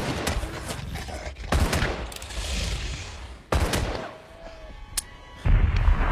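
Revolver shots fired one at a time, a second or two apart, in a film battle soundtrack, with a deep boom near the end.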